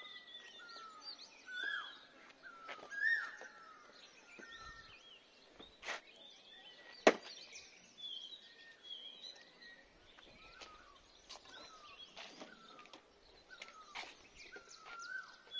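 Birds chirping and singing, with many short, repeated sliding notes. Two sharp clicks come about halfway through, the second being the loudest sound.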